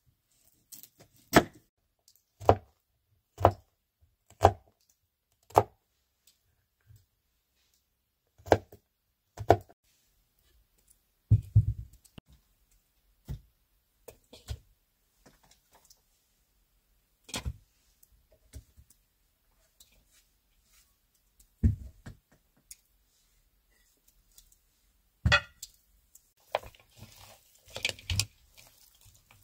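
Kitchen knife striking a wooden cutting board while an onion is cut, one sharp knock about every second. Later come scattered thumps and handling noises as raw partridges are moved about in a bowl.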